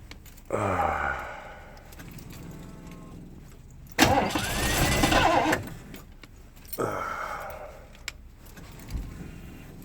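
1991 Ford E350's 5.8 L V8 being cranked on the starter three times in short bursts on a cold no-start, without settling into a steady idle.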